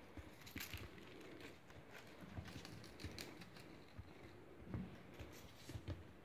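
Light patter and soft thumps of a 9-week-old Bengal kitten's paws scampering and pouncing on a wooden floor, with a few short scratchy rustles.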